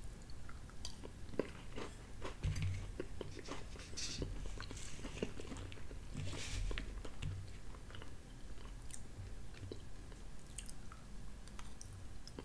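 A person chewing mouthfuls of chicken pot pie with flaky crust: soft wet chewing with many small clicks, and a fork scooping in the foil pie tin.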